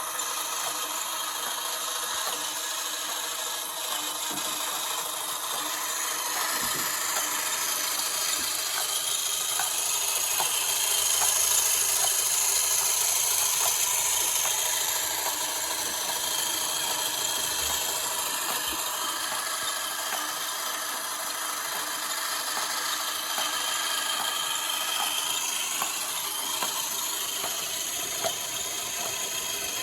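A small power tool running steadily, as if cutting or working material, with faint scattered ticks.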